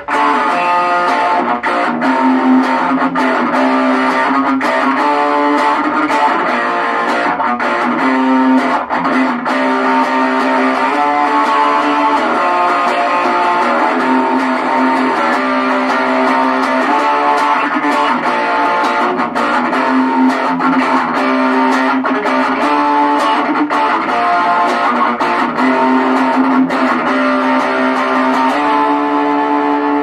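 Electric guitar played through a Belcat G-10 small practice amp on its overdrive setting: continuous riffing and strummed chords with light distortion.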